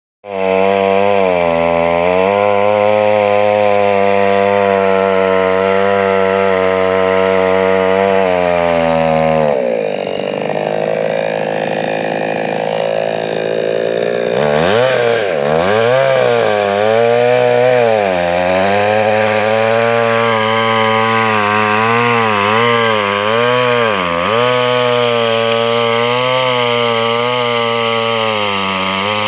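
Vulcan VSL 550 two-stroke chainsaw running at a steady high speed for about nine seconds. Its pitch then drops, and from halfway on it rises and falls again and again as it cuts into a eucalyptus trunk.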